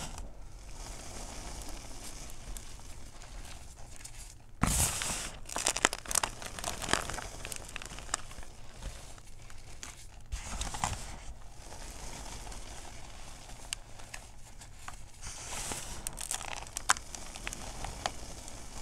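Fingers pressing and squeezing cornstarch crunchies and gym chalk powder by hand, giving a crackly, crumbly crunch. It comes in bursts of crunching, the loudest about five seconds in, with further bursts around ten and sixteen seconds.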